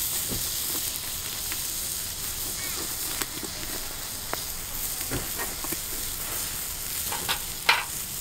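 Whole chicken roasting on a bamboo spit over a charcoal fire, its dripping fat sizzling on the embers as a steady hiss, with scattered small crackles and a sharper crackle near the end.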